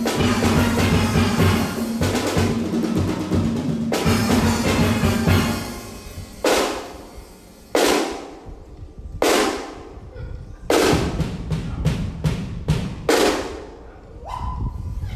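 Steel orchestra of steelpans and drum kit playing together. About five seconds in the pans drop out and the drum kit plays a break of separate sharp hits that ring out, spaced apart at first and then coming faster. Near the end the full band starts up again.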